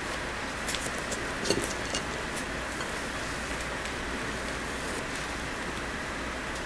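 Soft, moist steamed bread torn apart by hand: a few faint crackles about one to two seconds in, over a steady hiss.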